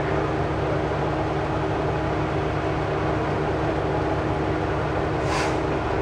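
Fire engine's diesel engine idling with a steady low drone. A short hiss cuts in about five seconds in.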